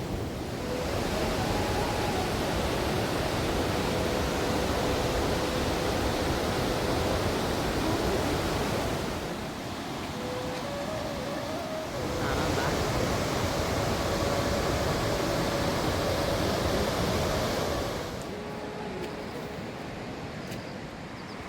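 Rushing mountain river: a steady, loud wash of water noise that drops suddenly about nine seconds in, comes back about three seconds later, and falls away again near the end.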